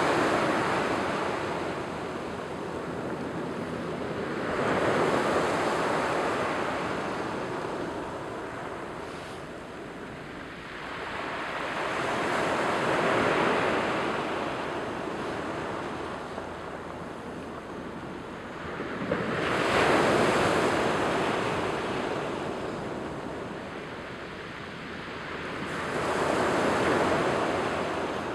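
Surf breaking on a pebble-and-cobble beach: the wash swells and ebbs five times, about every seven seconds, with a steady rush of water in between.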